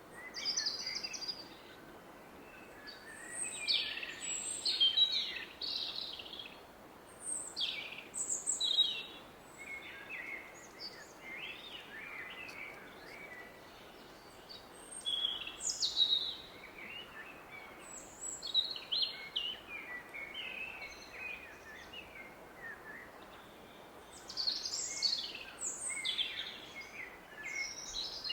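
Several woodland birds singing and calling in short trills and chirps, in clusters with brief lulls, over the steady rush of a distant river.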